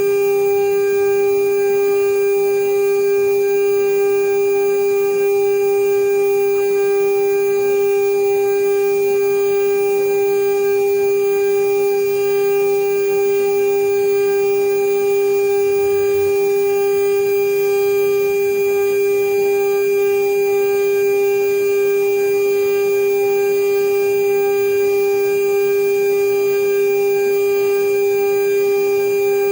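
CNC router spindle running at steady high speed, a constant whine with overtones that holds unchanged, while machining a marine aluminum seal plate.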